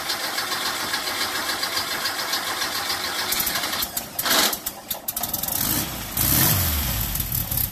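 Air-cooled VW flat-four (a 1776) running through an Empi single-tip exhaust just after a cold start, idling unevenly with surges about four and six seconds in. The owner puts the uneven idle down to a really big cam, not just the choke.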